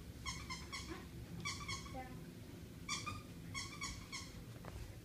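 Rubber squeaky dog toy squeaked in four quick runs of short, same-pitched squeaks.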